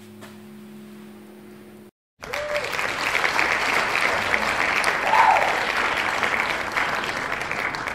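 A crowd applauding, starting abruptly about two seconds in after a brief dropout. Before it there is a low, steady hum.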